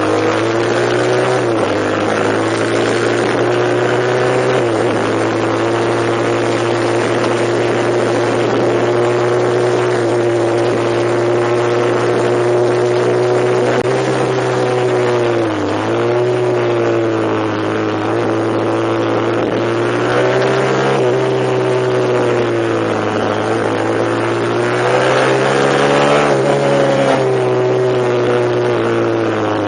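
A vehicle's engine running steadily under load, its pitch dipping briefly a few times, around 5, 15 and 23 seconds in, then climbing again, and rising highest a little past the middle of the last third.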